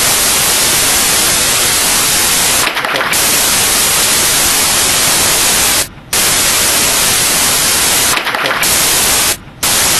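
Loud, even static hiss with no pattern in it, dropping out briefly about six seconds in and again near the end.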